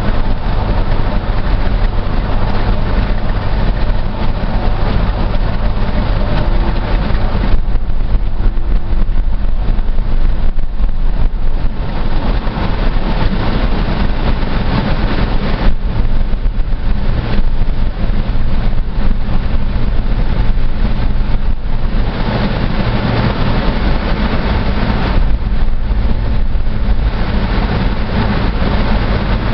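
Road noise inside a car driving at highway speed: a steady drone of tyres and engine, heaviest in the low end.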